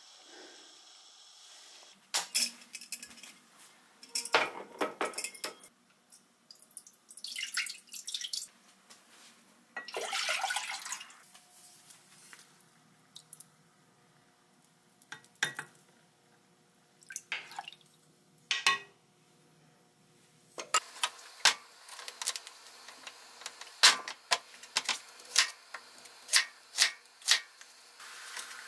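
Kitchen cooking sounds: a few stretches of water running, then a knife chopping potatoes on a wooden cutting board in a run of sharp knocks over the last several seconds. Utensils clink against a pot and dishes.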